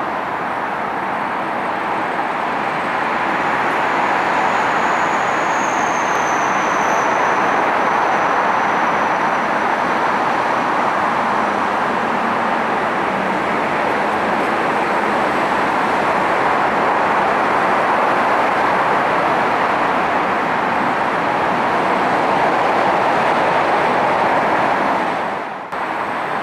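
Ilyushin Il-62M airliner taxiing, its four Soloviev D-30KU turbofans running with a steady jet noise. A faint high turbine whine slides down in pitch near the start.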